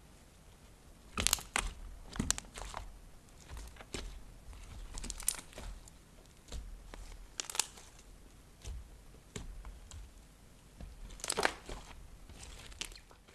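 Slime being worked by hand, giving irregular crackling pops and crunches, loudest about a second in and again near the end.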